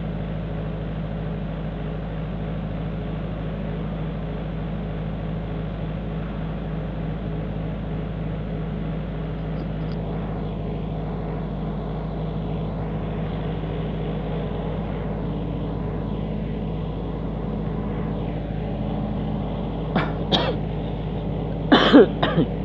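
Yanmar diesel engine of a Tsuzumi TYG20 20 kVA generator set running steadily under load after an automatic start on mains failure, a constant even hum. Two short bursts of a voice-like sound break in near the end.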